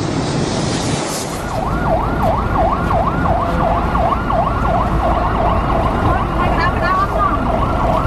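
A warbling siren-like tone, sweeping down and up about three times a second, starts about a second and a half in and keeps going, over a low rumble of traffic.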